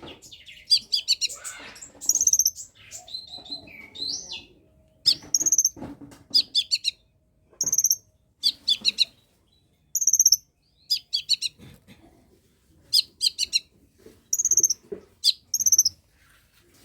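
Long-tailed shrike (cendet) singing: short bursts of rapid high notes repeated every second or so, with a softer, more varied passage about two to four seconds in.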